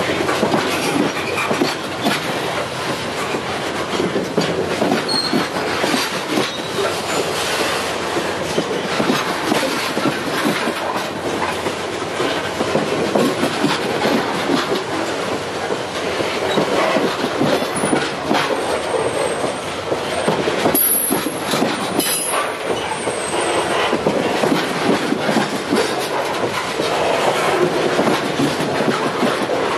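Freight train's covered hopper wagons rolling past close by: steady wheel-on-rail rumble with a dense run of clicks and clatter from wheels crossing rail joints. A few short high-pitched wheel squeals come about two-thirds of the way through.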